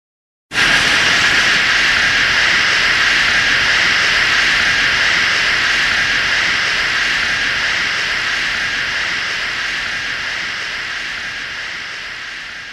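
Monster-film sound effect: a long, steady hissing rush that starts suddenly about half a second in and fades slowly near the end.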